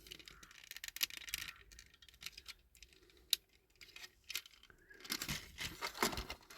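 Small clicks and scraping of plastic and diecast model-car parts being handled and prised at, with a denser stretch of scraping about five seconds in.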